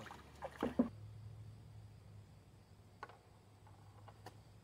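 A hooked creek chub being landed on a rocky creek edge: a few short splashes and knocks in the first second, then it goes quiet apart from a faint low hum and a couple of light clicks.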